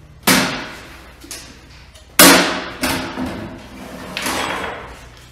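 Knocks and thuds of a router-table dust bucket box being handled and set down on a wooden workbench: four hits, the loudest about two seconds in, the last a longer rattle near the end.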